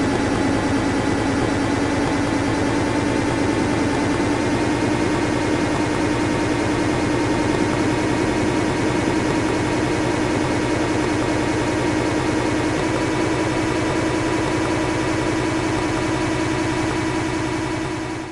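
Aircraft engine running steadily at take-off, with a strong even hum and a fainter whine above it that hold one pitch throughout, fading out at the very end.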